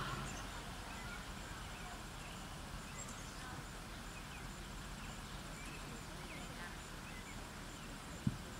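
Steady outdoor background with a few faint, short, high chirps and a single sharp click near the end.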